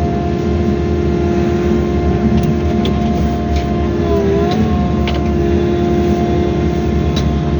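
Excavator's diesel engine and hydraulics running while it digs, with a steady whine that dips briefly in pitch about four and a half seconds in as the hydraulics take load. A few light clicks and knocks, as from the bucket on soil and stones.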